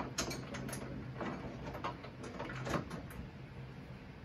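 Scattered light metal clicks and scrapes of a nut being turned onto a 3/8-inch coarse-thread bolt at the base of a roll bar, over a low steady hum.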